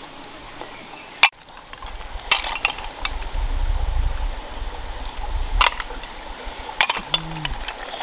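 Cooked snail shells clicking and clinking against each other as they are picked up and handled, with scattered sharp clicks, a loud one about a second in. There is a low rumble through the middle and a short falling low tone near the end.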